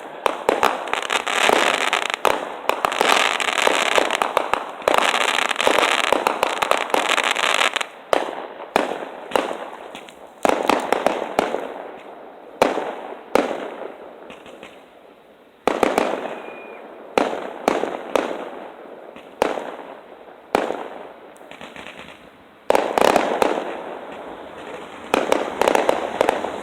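Fireworks exploding: a dense run of crackling bangs, then single sharp bangs about a second apart, each fading away, then another dense barrage near the end.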